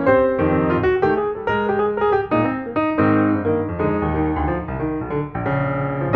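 Background piano music, a run of many quickly played notes.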